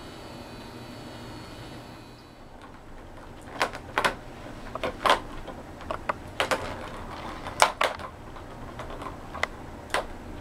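Plastic ball clattering around the track of a circular cat track toy as kittens bat at it: an irregular run of sharp clacks and rattles.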